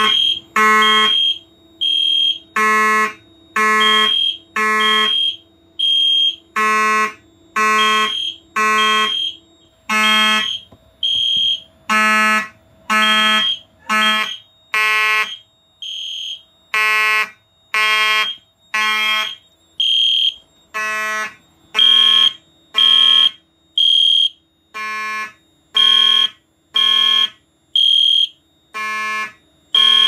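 Fire alarm horns sounding in the temporal code-3 pattern after a smoke detector was tripped by a magnet test: a Simplex 2901-9838 mechanical horn giving a buzzing blast and an EST Genesis ceiling horn-strobe giving a high electronic tone, both pulsing about once a second out of step with each other.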